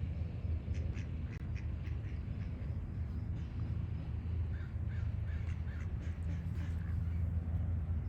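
Duck quacking in short calls, with a quick series of about six quacks in the middle, and other birds calling now and then. Under it runs a steady low rumble.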